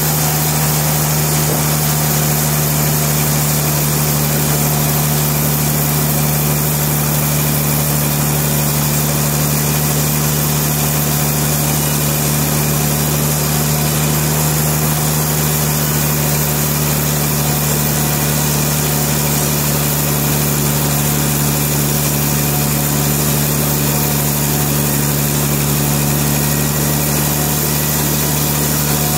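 Sawmill engine running steadily at one constant speed, with a strong even hum and no change in load.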